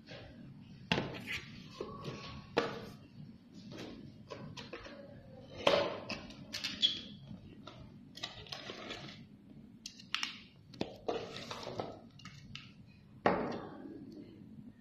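Unboxing handling noise: a plastic foam wrapping rustling and a cardboard box being handled, with irregular sharp knocks and taps scattered throughout.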